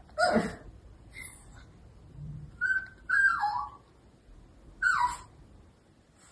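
A small pet animal giving four short high-pitched cries, each sliding down in pitch, the third one longer.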